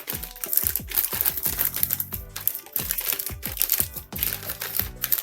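Background music with a beat and falling bass notes, over the crinkling of a large plastic postal bag being torn open.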